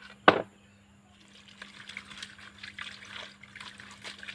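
A steel bowl is set down on concrete with one sharp knock, then water from a garden hose splashes into the bowl, rinsing okra.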